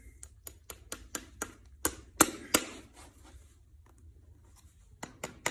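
Farrier's hammer tapping horseshoe nails into a hoof to fix a shoe: a quick run of light, sharp taps, about three a second, the loudest about two seconds in, then two more taps near the end.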